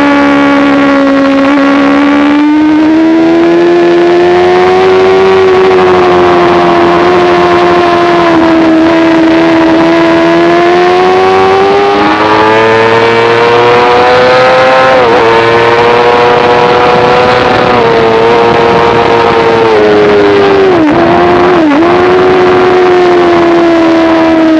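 Sport motorcycle engine held at high revs on track, heard from onboard, its pitch rising and falling slowly through the corners. There are quick dips in pitch near the middle and twice near the end.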